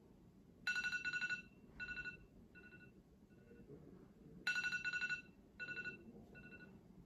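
Smartphone alarm going off: bursts of rapid high-pitched beeping, one longer burst followed by three shorter, fainter ones, the pattern repeating twice.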